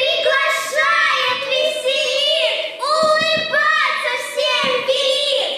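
Two boys singing into handheld microphones.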